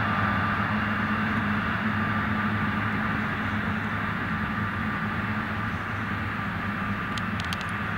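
Boeing 777-300ER's GE90 turbofans at taxi idle as the airliner rolls past: a steady whine over a low hum, slowly fading. A few short clicks near the end.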